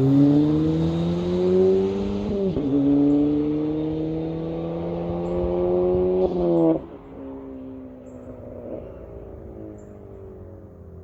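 2016 Ford Fiesta ST's turbocharged 1.6-litre four-cylinder accelerating hard through the gears with an aftermarket exhaust: the engine note climbs, drops at upshifts right at the start and about two and a half seconds in, then climbs again. Near seven seconds it cuts off sharply as the throttle is lifted, leaving a much quieter, steady engine note.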